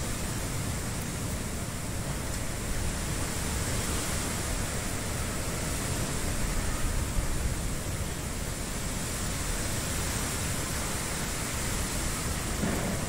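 Strong pre-monsoon wind rushing through the trees, a steady noise with wind rumbling on the phone's microphone.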